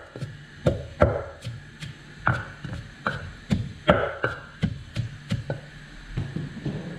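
Pestle pounding garlic and chillies in a mortar: steady, sharp strikes about two a second, growing softer near the end.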